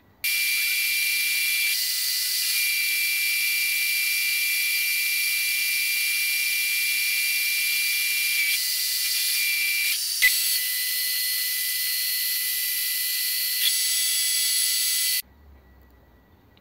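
A metal lathe turning a Ford flathead flywheel under a cutting tool, played back sped up so that the cutting and machine noise come out as a steady, high-pitched hiss with whistling tones. There is a sharp click about ten seconds in, and the sound cuts off suddenly about fifteen seconds in.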